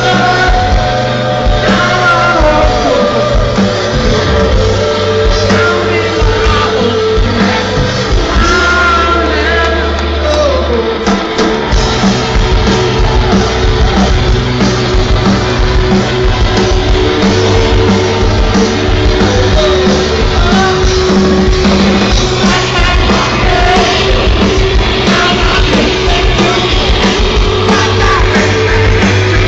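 Live rock band playing loud, with electric guitars, bass, drums and a lead singer, heard through the PA from within the festival crowd.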